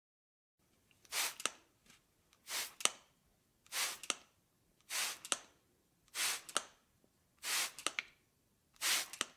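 An edited-in sound effect: a short hiss followed by two or three quick clicks, repeated seven times at an even pace of about one every second and a quarter.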